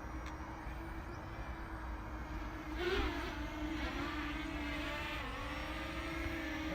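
Small camera drone's propellers humming steadily as it hovers and comes in to land, the pitch wavering about three seconds in and dipping briefly about five seconds in.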